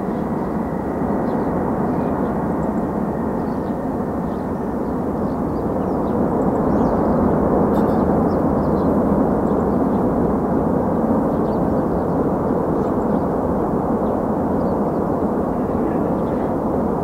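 Boeing 747-400 freighter's engines rumbling during its landing rollout. The steady noise builds to its loudest about halfway through and then eases slightly.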